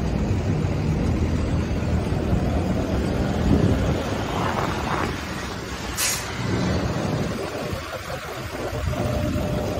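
City street traffic: car and truck engines running past in a steady rumble, with a short, sharp hiss about six seconds in.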